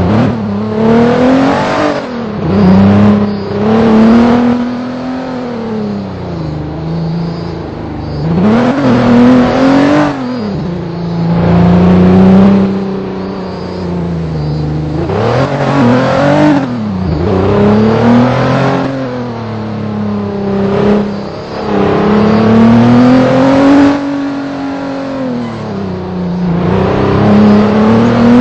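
A vehicle's engine running hard, its pitch rising and falling over and over as the throttle is opened and eased off, with a louder rush on each climb.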